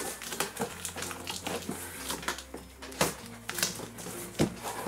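Cardboard shipping box being opened by hand: flaps pulled up and bent back, with a run of short scrapes, rustles and knocks, one louder knock near the end, over quiet background music.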